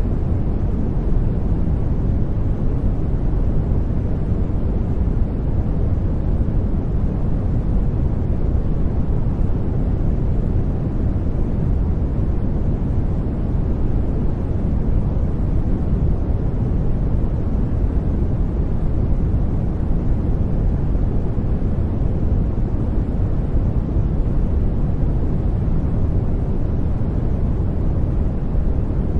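Steady synthetic noise for sleep and relaxation, deep and even, with most of its weight in the bass and little treble. It does not change throughout.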